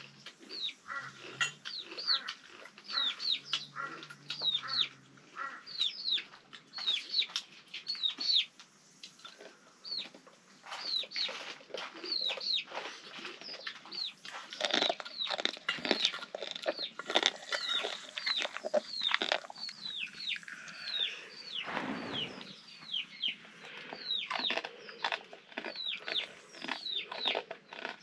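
Chickens calling: many short, high, falling chirps, several a second, overlapping throughout.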